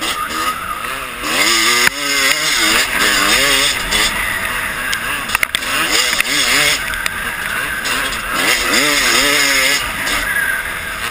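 Dirt bike engine being ridden hard, its pitch rising and falling again and again as the throttle is worked, over a steady high hiss.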